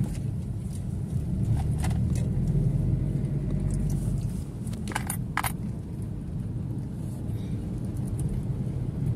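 Steady low rumble of a vehicle's engine and tyres on the road while driving, with a few brief clicks about two seconds in and again about five seconds in.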